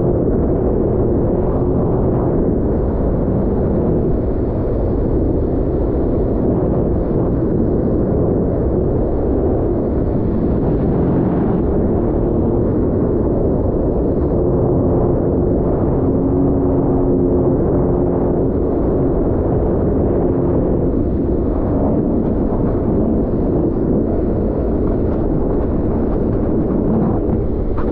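Sea-Doo personal watercraft under way on choppy water: a steady loud rush of wind and water over the drone of its engine, whose tone shifts slightly now and then.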